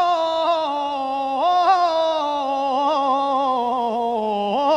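A man singing one long, ornamented note in copla style, the pitch wavering as it slowly drifts downward. It leaps up about a second and a half in, and again near the end.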